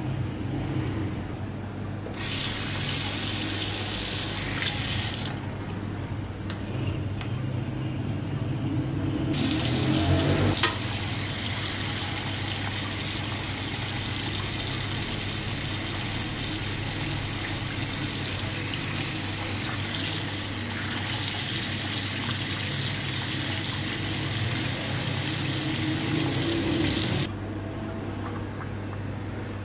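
Tap water running into a sink and over a film negative that is being rinsed and rubbed by hand. The water runs briefly a couple of seconds in, stops, then runs steadily from about a third of the way through until it cuts off near the end, over a steady low hum.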